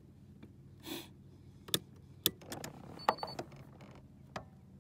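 Scattered sharp clicks and knocks of gear being handled on a boat over a faint low steady hum, with a brief high beep about three seconds in.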